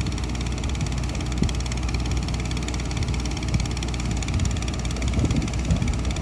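Engine of a truck-mounted air compressor running steadily, a constant low drone, while it pumps a car tire up to bursting pressure.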